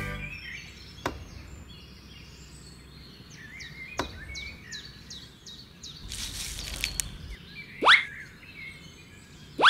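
Birds chirping in a light background ambience, with two quick rising 'bloop' sound effects near the end, about a second and a half apart, and a couple of soft clicks earlier.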